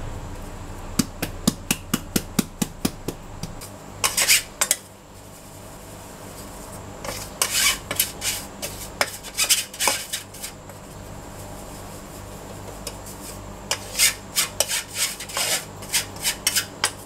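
Flour being sifted through a round metal-mesh sieve: a run of quick taps on the sieve, about four or five a second, in the first few seconds, then a metal spoon scraping the flour through the mesh in spells of rapid rasping strokes.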